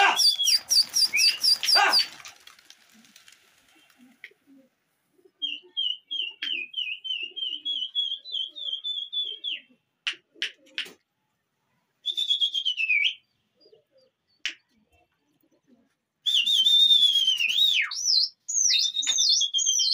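Loud human whistling in high, warbling and swooping tones, the call a pigeon flier uses to send his flock up and keep it flying. A few sharp cracks come about halfway through.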